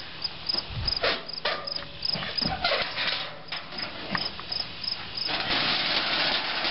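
Clanks and knocks from the metal rear door of a propane corn-roasting machine being opened, followed by an even hiss from about five seconds in. A cricket chirps steadily, about twice a second, throughout.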